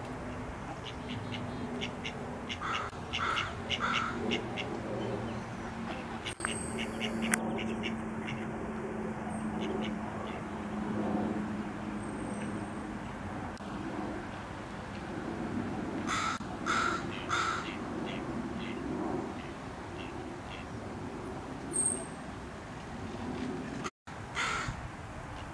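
Female mallard quacking in short series of rapid, harsh calls, several times over, above a low steady hum. A single sharp click is heard about seven seconds in.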